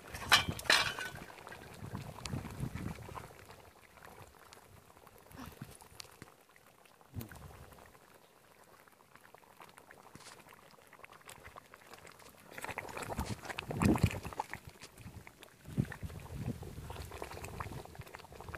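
Goat head gravy boiling in a large iron kadai over a wood fire, bubbling steadily. A sharp clatter about a second in and a louder stretch of knocks and rustling about two thirds through stand out above the bubbling.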